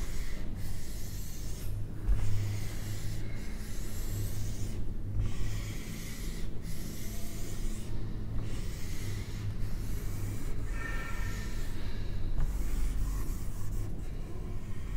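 Whiteboard eraser rubbing across a whiteboard to wipe off marker writing: a run of swishing strokes with short pauses between them, about one every second or so.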